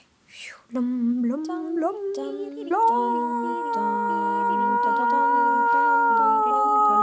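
Voices humming without instruments: the notes step upward for about two seconds after the start, then settle into a steady chord that is held.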